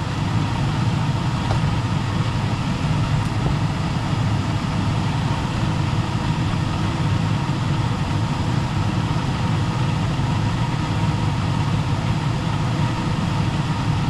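Gas furnace running in heating: a steady, low rushing noise of its fans and burners, with a faint steady hum above it.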